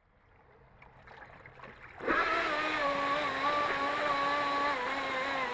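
Radio-controlled mini jet boat's motor starting up about two seconds in and running with a steady whine, its pitch wavering slightly with the throttle. Before that there is only faint water noise.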